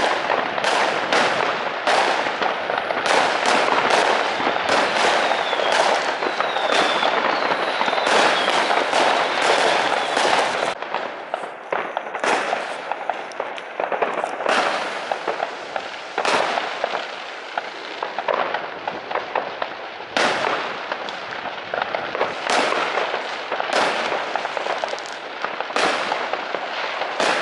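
Fireworks going off: aerial shells bursting, with a dense, near-continuous run of bangs and crackle for about the first ten seconds, then sparser separate bangs.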